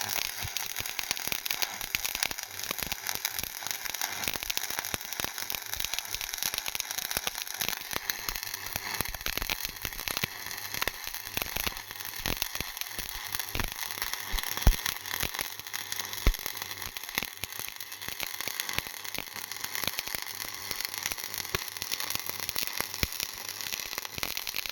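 Electric welding arc crackling steadily, with two louder pops near the middle.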